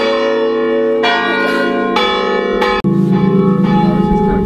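Loud church bells ringing in the tower, struck about once a second on different notes, each stroke ringing on under the next.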